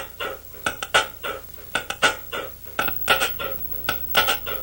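Cutlery clinking against crockery: irregular light clinks, about three a second.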